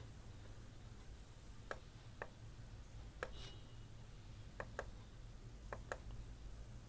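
Faint computer mouse clicks, about seven, mostly in close pairs, over a low steady hum.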